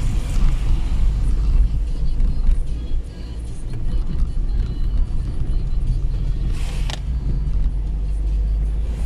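Steady low rumble of a car driving on a wet road, heard from inside the cabin, with a brief hiss near the end.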